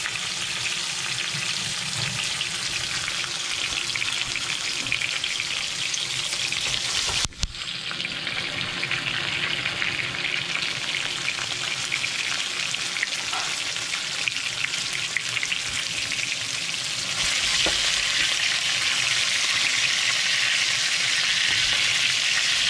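Battered redfish fillets sizzling steadily as they shallow-fry in hot canola oil in a skillet. The sizzle breaks off briefly about seven seconds in and grows louder near the end.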